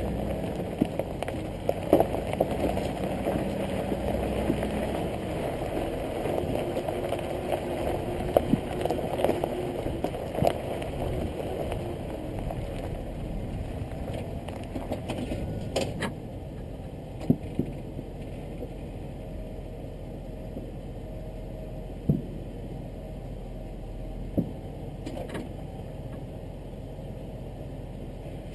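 Hummer H3T Alpha's V8 running low as the truck crawls over a rocky gravel trail, its tyres crunching and stones clicking and popping under them. About halfway through the truck slows almost to a stop and the sound drops to a steadier low rumble, broken by a few single sharp stone clicks.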